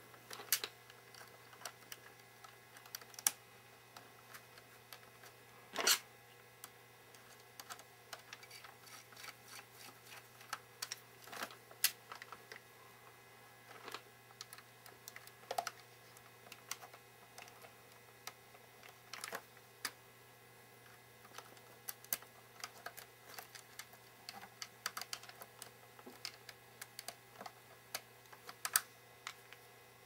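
Scattered light clicks and taps, a few louder than the rest, as hands handle a laptop's charging plug and the 3D-printed plastic spring around its cable against the laptop's case.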